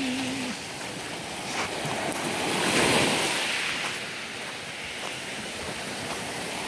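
Small waves breaking and washing up over a pebble beach, the hiss of surf swelling to its loudest about three seconds in and then easing.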